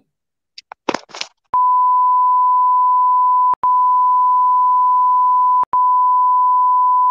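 Censor bleep: one steady, high-pitched pure tone lasting about six seconds, with two short breaks, laid over a caller's swearing. A brief scrap of the caller's voice comes just before it starts.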